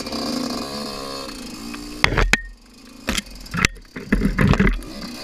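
Husqvarna dirt bike engine running at low revs, its pitch wavering as it is nursed along. From about two seconds in come several loud knocks and clatters, a cluster of them near the end.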